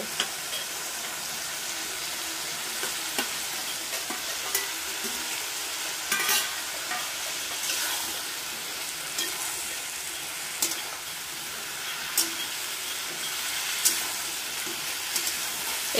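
Vegetables sizzling in oil in a metal kadai while fried aubergine, potato and a fish head are tipped in and stirred with a metal spatula. Occasional sharp clinks and scrapes of the spatula against the pan cut through the steady sizzle.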